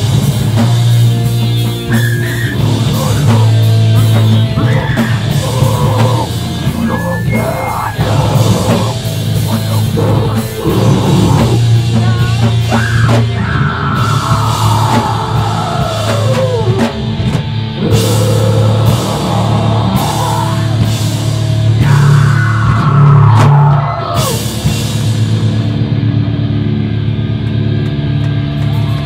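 A screamo band playing live: distorted electric guitars, a drum kit with crashing cymbals, and screamed vocals. Near the end the drums stop and the guitars ring on.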